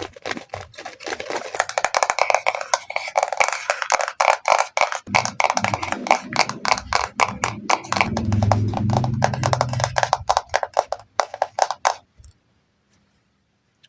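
Rapid tapping on make-up products, many quick taps a second, with deeper, fuller knocks for a few seconds in the middle. The tapping stops about twelve seconds in, followed by one last tap near the end.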